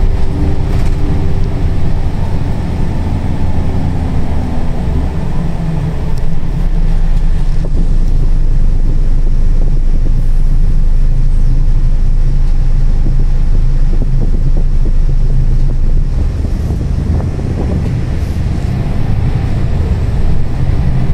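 Scania K340 coach's diesel engine heard from inside the cabin while driving: a steady low drone over road noise, its pitch shifting about five seconds in and again around sixteen seconds.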